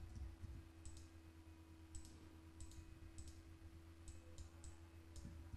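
Faint computer mouse clicks, about a dozen scattered single and paired clicks, over a low steady hum.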